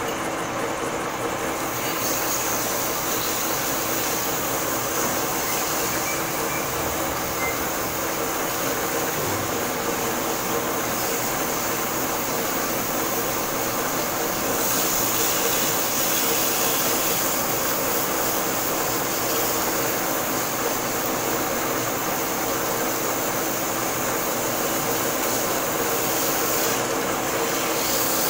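Metal lathe running with a large metal workpiece spinning in the chuck: a steady machine hum with a couple of steady tones under a hiss. The hiss grows slightly louder about halfway through.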